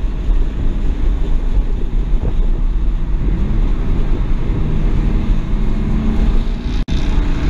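Cabin sound of a 2007 BMW 335i at track speed: its N54 twin-turbo straight-six running steadily under the deep rumble of road and wind noise. The sound cuts out for an instant near the end.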